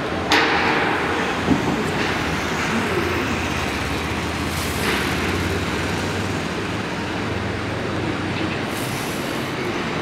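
Building-site din: a steady low machine drone under a broad background noise, with a few sharp knocks and clanks, the clearest in the first two seconds.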